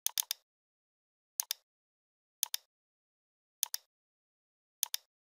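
Computer mouse button double-clicks: five quick sets of two or three sharp clicks, a little over a second apart.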